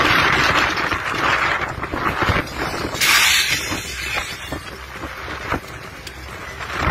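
Strong storm wind gusting and buffeting the microphone, a loud hissing rush that surges at the start and again about three seconds in, with a few short knocks in between.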